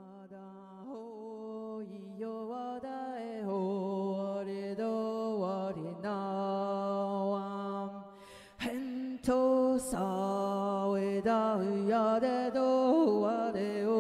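A slow, wordless vocal chant: a solo voice sings a flowing melody in syllables over a steady low drone note, with a short break a little past the middle.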